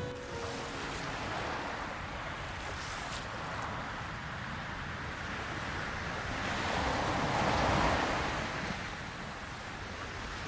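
Sea surf washing onto a sandy beach, a steady hiss of water that swells louder about seven to eight seconds in as a wave breaks, then eases.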